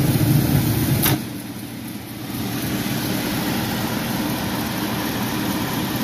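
Gas furnace running, then a sharp click about a second in as the safety-switch lead is pulled and the system shuts down; the hum drops. A steady blower-motor hum then carries on, since the blower keeps running after the safety trip.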